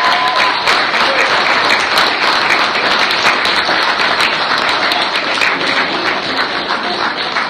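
A small crowd applauding, many hands clapping steadily, easing off slightly toward the end.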